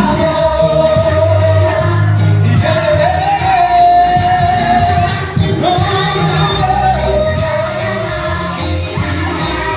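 Pop song with voices singing long held, high notes that slide slightly in pitch, over a band backing with bass and drums.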